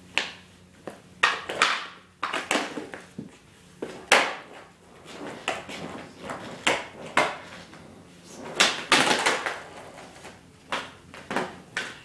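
Plastic penny board clacking and slapping on a concrete floor during attempted flip tricks: a string of irregularly spaced sharp impacts, some followed by a brief clatter, over a faint steady hum.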